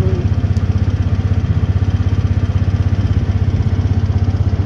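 Vehicle engine running steadily under way, with a fast, even throb.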